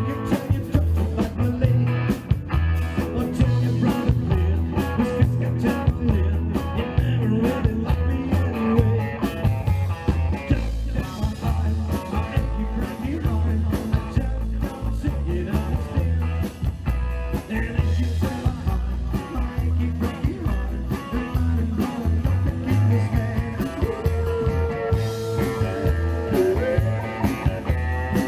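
Live rock and roll band playing: upright double bass keeping a steady beat under electric guitars and a singer.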